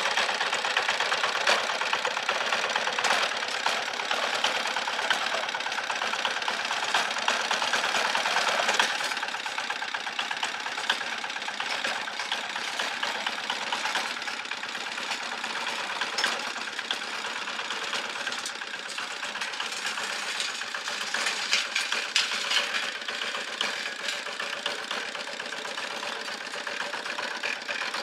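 Rebuilt 18 HP single-cylinder diesel engine of a mini hand tractor running on its test run, a little quieter from about nine seconds in.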